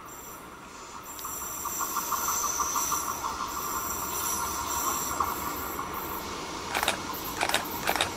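Red double-deck regional push-pull train approaching round a curve, growing louder, with a steady high-pitched whine from the rails and wheels. A few sharp clacks come near the end.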